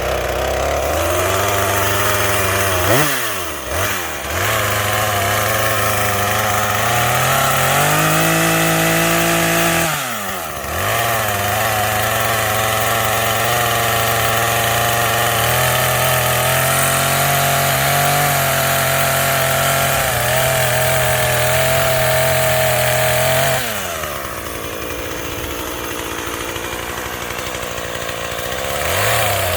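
Small gas-powered saw running at high speed while cutting a tree limb. It drops off sharply twice, about three and ten seconds in, and picks back up each time. About three-quarters of the way through it eases to a quieter, lower speed, then speeds up again near the end.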